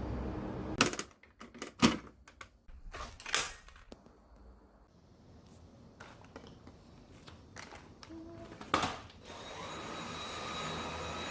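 A steady noise cuts off about a second in, followed by scattered knocks and clicks. About nine seconds in, a vacuum cleaner starts and runs steadily with a motor whine.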